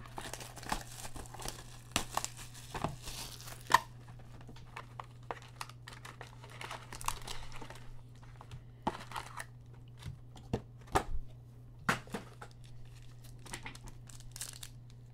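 Plastic wrapping and foil trading-card pack wrappers from a 2018 Panini Playoff mega box crinkling and tearing, in many scattered sharp crackles, over a faint steady low hum.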